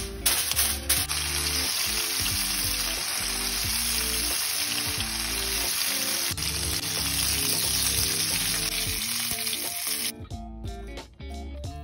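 Karaage (flour-coated chicken pieces) shallow-frying in oil in a foil-covered frying pan, a loud, steady sizzle that cuts off about ten seconds in. A few crackles of aluminium foil come at the start as it is pressed over the pan. Background music plays throughout.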